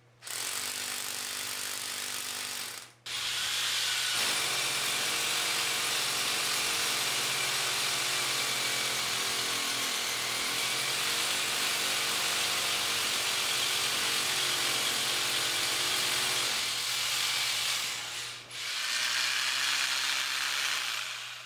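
Corded hammer drill boring into a concrete floor with a masonry bit, running steadily in three runs: a short one, a long one of about fifteen seconds, and another short one near the end.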